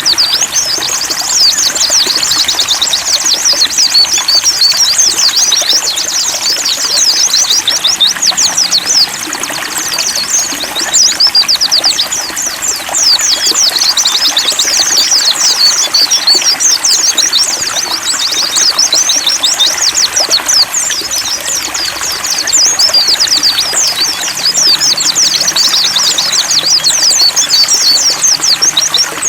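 A flock of pleci (white-eyes) twittering nonstop in rapid, high chirps, over steadily trickling water.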